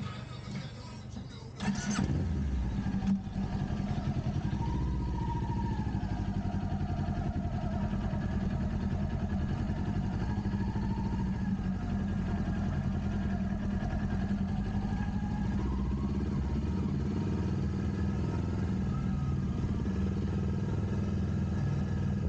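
Kawasaki Ninja 400's parallel-twin engine, breathing through a Kemimoto aftermarket muffler, starting about two seconds in and then idling steadily.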